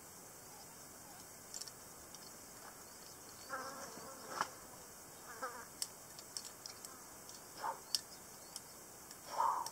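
A flying insect, fly or bee, buzzing past in several short passes over a steady faint hiss, loudest near the end, with a few sharp clicks in between.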